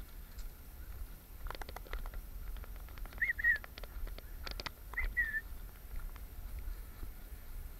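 A bird gives two short chirping calls, each a quick rise and fall, about three and five seconds in. Scattered clicks and crunches from footsteps on a gravelly path come before each call.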